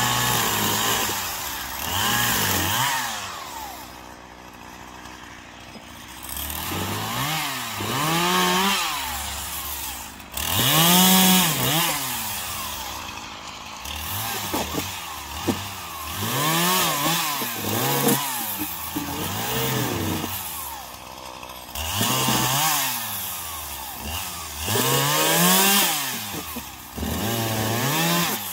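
Poulan Pro 5020 two-stroke chainsaw cutting branches off a felled pine, its engine revving up and dropping back over and over in short bursts. It settles to a lower idle for a couple of seconds near the start and again about halfway through.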